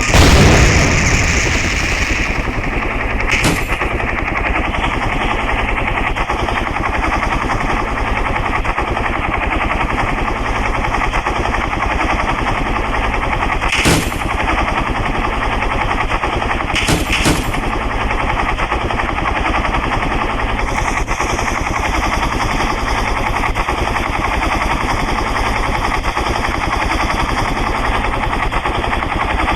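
Helicopter rotor beating in a steady, rapid chop. A loud hit comes at the very start, and a few sharp cracks come about 3, 14 and 17 seconds in.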